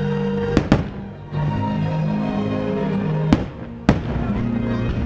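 Fireworks shells bursting with sharp bangs, two close together about half a second in and two more between three and four seconds in, over music.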